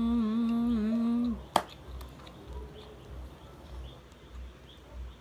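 A person humming one steady, slightly wavering note that stops about a second in, then a single sharp click. After the click, faint chewing.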